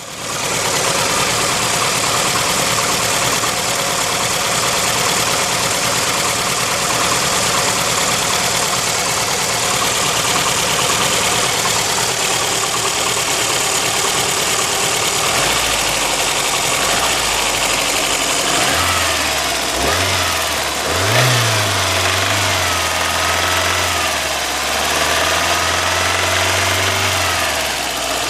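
VAZ-2111 engine running with a knock that the owner cannot identify, its speed shifting a few times in the second half.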